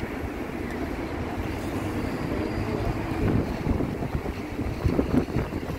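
Wind buffeting the microphone, with louder gusts about three and five seconds in, over the wash of surf breaking on a sandy beach.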